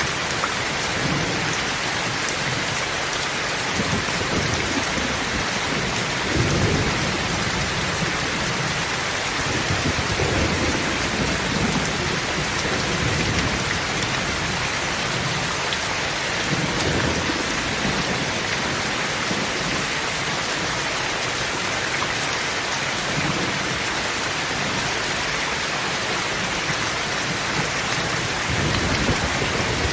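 Thunderstorm: steady, heavy rain falling, with low rolls of thunder rumbling through it several times and a louder roll building near the end.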